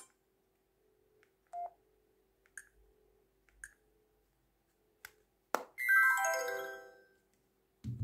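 Alcatel flip phone after its ringtone is cut off: a few short faint key beeps, a click, then a descending electronic chime of several quick notes lasting about a second and a half. A low thump near the end.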